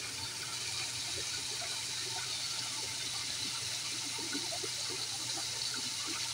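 Water running steadily into a small garden fish pond: a continuous splashing trickle.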